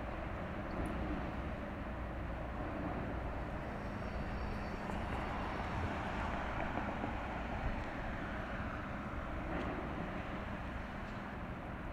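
Steady low drone of passing ships' engines, with a faint steady hum under an even rushing noise.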